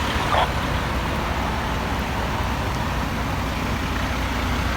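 Steady idling of heavy vehicle engines under a constant haze of city street traffic noise, with one short sharp sound about half a second in.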